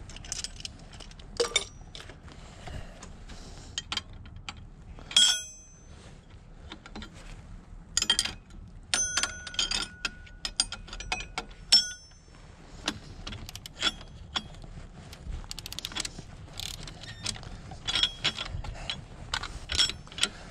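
Ratchet clicking in short runs as it works the bolts of a pulley puller, drawing a pulley off an engine shaft, with sharp metal clanks. One clank near the middle rings on for a few seconds.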